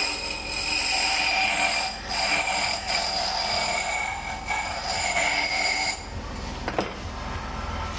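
A turning tool cutting a slim wooden pen-holder spindle on a running wood lathe, giving a steady high-pitched whine with shavings flying, until the cut stops about six seconds in.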